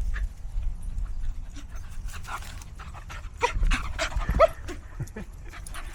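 Dogs panting close by, with a few short whines from a dog about three and a half to four and a half seconds in.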